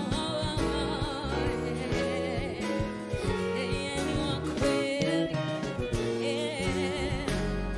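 Swahili gospel worship music: a singer's voice held on long notes with wide vibrato over a band with bass and keyboard-like sustained chords.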